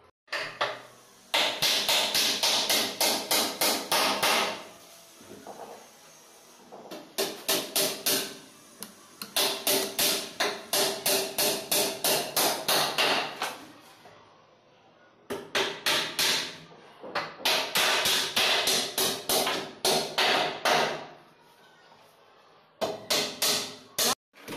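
Hammer striking a plywood board in quick runs of blows, about four or five a second, with short pauses between the runs.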